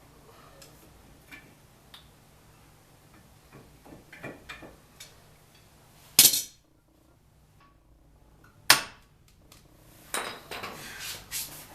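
Light clinks of metal tools, then two sharp metal strikes about two and a half seconds apart, then a run of clanking near the end. This is a seized front brake caliper on an OBS GMC Suburban being forced back into place.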